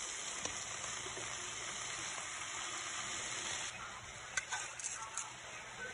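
Hot oil sizzling in a frying pan under a heap of fresh spinach leaves piled onto sautéed tomatoes and onions. The sizzle drops off a little about four seconds in, and a few light clicks follow.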